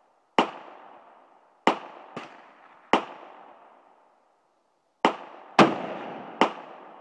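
Seven gunshots on a firing range, irregularly spaced, two of them only about half a second apart. Each is a sharp crack with a long fading echo, and the loudest comes a little past halfway.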